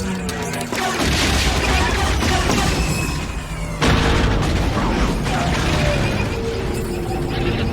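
Cinematic sci-fi spaceship battle sound effects: layered explosions and booms with falling laser-blast zaps, and a sudden loud blast about four seconds in.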